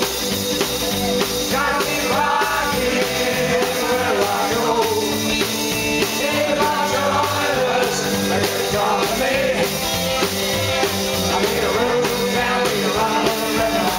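A rock and roll band playing live, with singing over the band.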